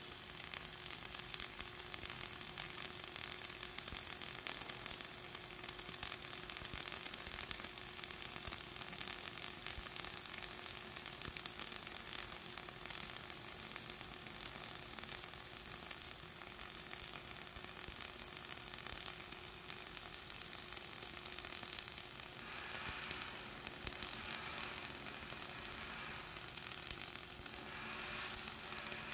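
Flux-cored arc welding on carbon steel plate: the arc crackles steadily and continuously as the bead is laid, with a faint steady hum underneath.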